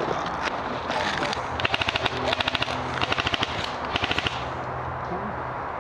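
Airsoft gun firing on full auto in several short, rapid bursts of sharp clicking shots, about a second and a half to four seconds in.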